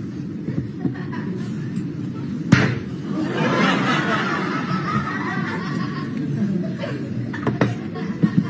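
A sharp knock about two and a half seconds in, then an audience laughing for about three seconds over a low steady hum, with a few lighter knocks near the end.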